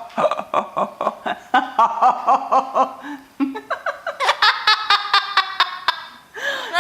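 Laughter: rapid, repeated short ha-ha syllables in two bouts, with a short lull about three seconds in.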